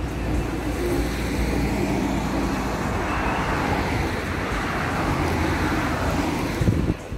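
Road traffic noise: a steady rumble of passing vehicles that swells in the middle, then stops abruptly near the end.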